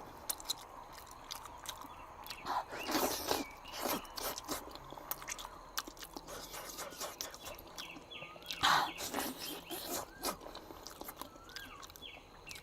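Close-up mouth sounds of someone eating braised pig trotter: chewing and gnawing the gelatinous skin and tendon, with wet smacks and sucks.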